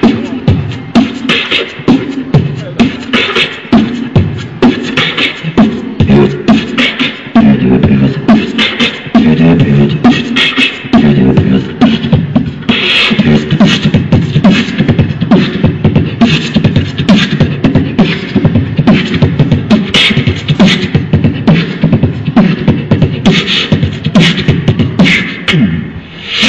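Live vocal beatboxing: a steady beat of mouth-made kick, snare and hi-hat sounds over a continuous hummed, pitched vocal bass line.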